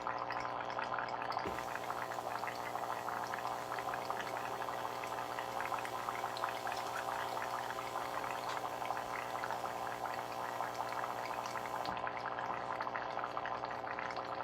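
Ringanator ring-cutting machine's small motor running steadily, with a dense crackle of the cutter working through a wire coil.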